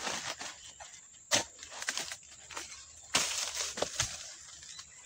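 Dodos harvesting chisel on a long pole chopping into the frond and bunch stalks at the base of an oil palm: several sharp chops, with a longer crunching burst about three seconds in.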